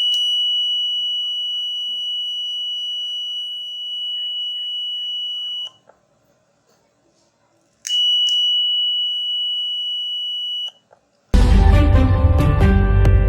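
A 555-timer fire alarm circuit's buzzer sounds a steady high-pitched tone for about six seconds with a click as it starts. After a two-second pause it sounds again for about three seconds. Loud background music starts near the end.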